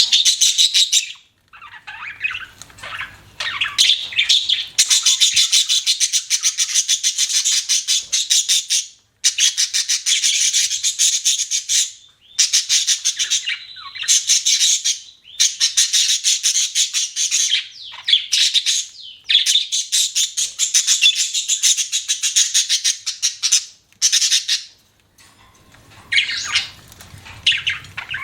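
Budgerigar chattering in long runs of fast, scratchy chirps and warbles, broken by brief pauses.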